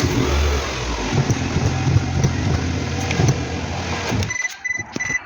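Car engine running with a steady rush of noise. About four seconds in it drops away, and a series of short, evenly spaced high beeps follows.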